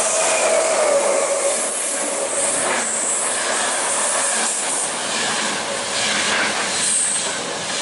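A passenger train's coaches running past close by at speed, with a steady rumble of wheels on rail, faint clatter over the rail joints and a high hiss. A falling tone from the passing electric locomotive dies away in the first second.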